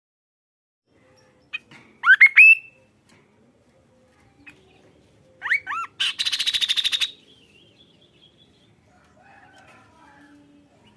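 Kaso-kaso bird singing: a burst of loud, sharply rising whistled notes about two seconds in, then another phrase of curved whistles a few seconds later that runs into a rapid rattling trill lasting about a second.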